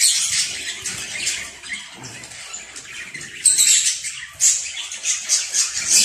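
Young Timbrado canary fledgling chirping: a fast run of thin, high-pitched calls, quieter for a moment in the middle and loudest about three and a half seconds in.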